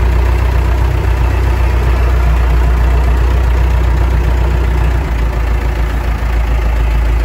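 Zetor Crystal 8011 tractor's diesel engine idling steadily, heard from inside the cab.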